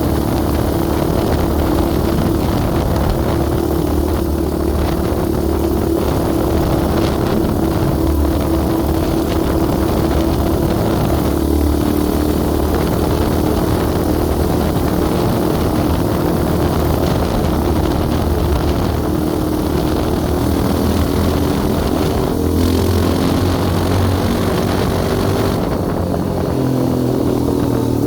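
Yamaha Raptor 700R sport quad's single-cylinder four-stroke engine running at a steady pitch while riding. The engine note drops near the end as it eases off.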